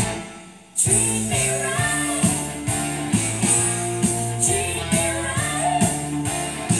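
Rock song with singing, guitar and a steady drum beat, played from a vinyl record on a Technics SL-QD3 turntable. The music falls away almost to nothing at the start and comes back sharply a little under a second in.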